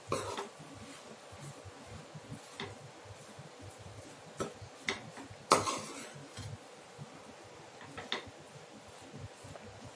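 Metal spatula stirring grated coconut and tomato masala in a metal kadai, scraping the pan with scattered clinks of metal on metal; the loudest clink comes about five and a half seconds in.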